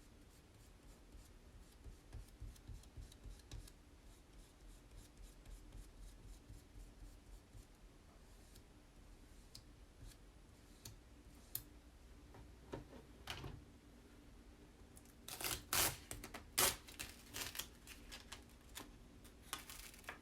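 Squeegee scraping black chalk paste across a Chalk Couture transfer onto a tag: faint soft tapping and small scrapes at first, then a short run of louder, sharp scraping strokes about three-quarters of the way through.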